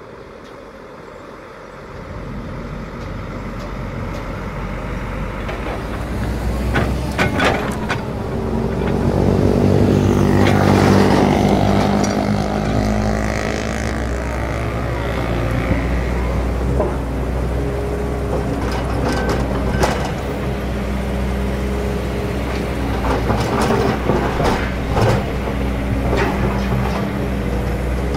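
A diesel dump truck approaches and drives past, growing louder and then falling in pitch as it passes. After that a Kobelco SK200 hydraulic excavator's diesel engine runs steadily while it digs, with occasional sharp clanks.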